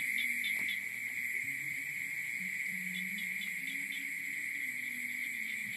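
Night-time insect chorus: a steady high drone with a quick chirping of about four pulses a second over it, and low wavering calls beneath.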